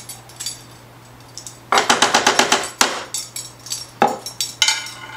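A metal measuring spoon scraping and rattling against a glass jar while coconut oil is scooped out: a quick run of clicks lasting about a second, then a few single knocks and a ringing metal clink near the end.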